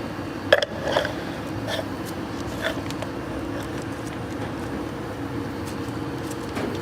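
Steady hum of running factory machinery, with a handful of short, sharp knocks in the first three seconds as a part is handled and fitted on the machine.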